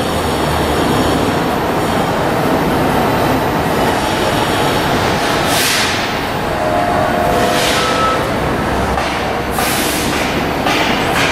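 New York City subway train running on elevated track: a steady rumble of wheels on rail, with a thin wheel squeal coming in over the second half and a few short hissing swells.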